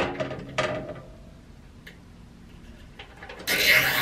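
Faint handling ticks, then a short, loud rustling scrape near the end as hands work a hanging cord through a hole in the top of a wooden cabinet.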